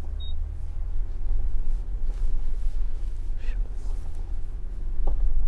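Nissan Patrol's non-turbo six-cylinder engine pulling at low revs in first gear, heard from inside the cabin, as the SUV climbs a rocky slope in light four-wheel drive without the differential lock. It is a steady low rumble that grows louder near the end.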